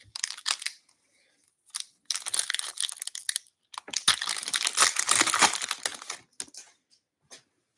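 Foil wrapper of an Upper Deck Series 2 retail hockey card pack crinkling and tearing as it is ripped open, in two long stretches of crackling rustle. A few light clicks follow near the end as the cards are pulled out.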